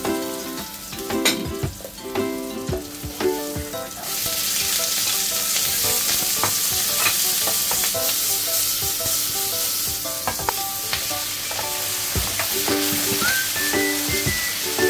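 Stir-frying in a nonstick wok: garlic sizzling in oil with the slotted spatula scraping and tapping the pan, then from about four seconds in a louder, steady sizzle as garlic chive stems and then mushrooms are tossed in the hot oil, with more spatula scrapes.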